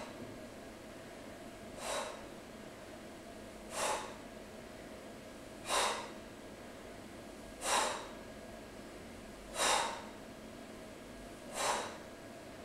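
A woman's short, sharp exhalations, one about every two seconds, six in all: she breathes out hard on each repetition of a dumbbell arm exercise.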